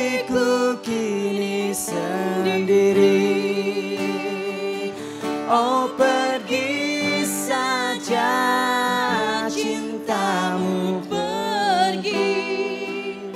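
Live acoustic guitar playing chords under a singer's voice, which holds long wavering notes that bend up and down.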